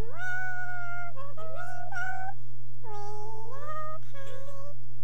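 A human voice sped up into a high, squeaky chipmunk voice, with a long held note at the start and then shorter gliding syllables, over a steady low hum.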